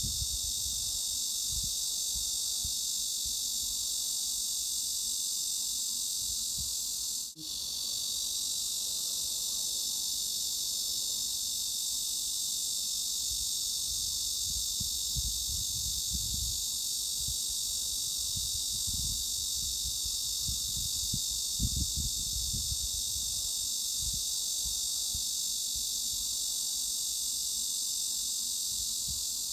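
Dense, steady cicada chorus, a high-pitched buzzing hiss. It cuts out for an instant about seven seconds in, and an irregular low rumble comes and goes underneath.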